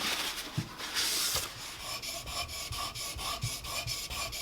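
A steel chisel being honed on a diamond whetstone: metal rubbing back and forth in quick, even strokes, about four a second, after a short hiss about a second in. It is a light touch-up honing of an edge that is not badly worn.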